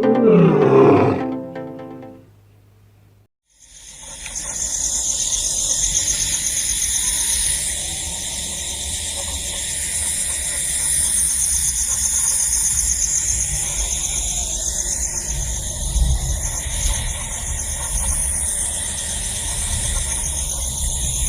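A short musical phrase ends with a falling sweep, and after a brief silence a steady, high-pitched chorus of night insects trilling with a rapid pulse sets in over a low rumble. A few short sliding calls come through about halfway and near the end.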